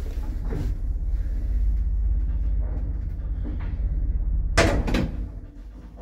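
1978 lift travelling between floors: a steady low rumble from the running car and hoist. About four and a half seconds in there is a loud double clatter as the car stops at a landing, and the rumble then drops away.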